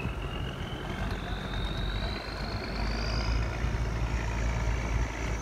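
Wooden fishing boat's diesel engine running as the boat approaches under way, a deep steady rumble that grows louder in the second half, with a thin high whine slowly rising in pitch.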